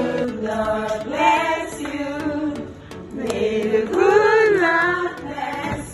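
Voices singing a melody together, choir-like, with long sung notes that swell loudest in the second half.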